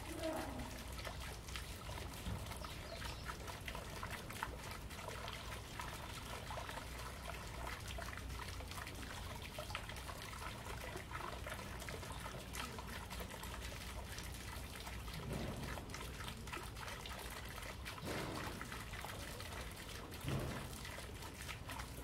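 A small water fountain trickling steadily into a pond.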